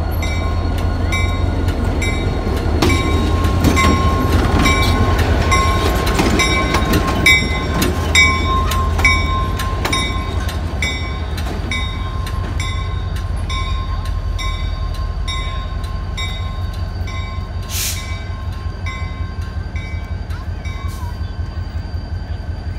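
Diesel-electric locomotive 2198 rumbling low as it rolls slowly through the station, its bell ringing steadily about twice a second. A brief hiss about three-quarters of the way through.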